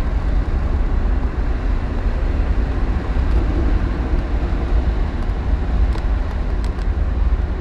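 Steady in-cabin rumble of a Lancia Thema 8.32 driving at cruise: tyre and road noise from a rough road surface, with the car's Ferrari V8 running underneath.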